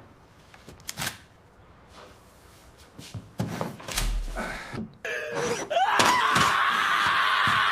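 A few knocks and thunks, then an electric drill spins up with a rising whine about six seconds in and runs steadily at full speed.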